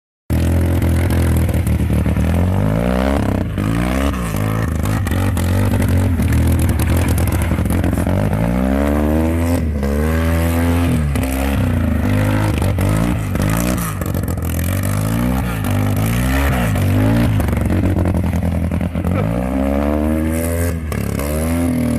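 Car engine revving up and down over and over as a stripped-down, roofless car is driven hard across a rough field; its pitch rises and falls every second or two.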